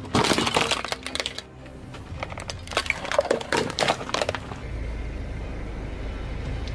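Hard plastic casing of a hair dryer cracking and crunching under a car tyre: a loud burst of sharp cracks at the start, then a second run of snaps and crunches. A steady low rumble follows near the end.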